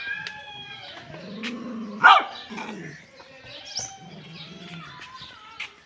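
A dog giving short yips and whines, with one loud bark about two seconds in.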